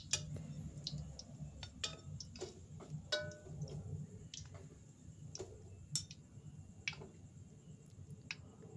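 Metal spatula and wire-mesh strainer clinking and tapping against each other and the wok as fried garlic is lifted out and drained of oil: irregular light clicks, a few with a brief metallic ring, over a low steady hum.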